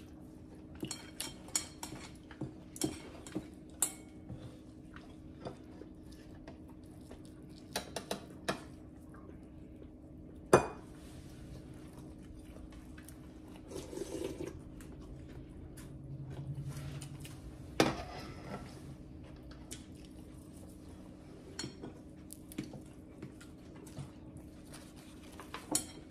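Spoons and utensils clinking against ceramic bowls and dishes during a meal: scattered light clinks, with one sharper knock about ten seconds in and another near eighteen seconds, over a steady low room hum.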